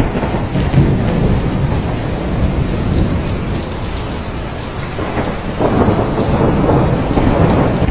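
Thunderstorm: steady heavy rain with rolling thunder rumbling underneath, easing off in the middle and swelling again a little past halfway.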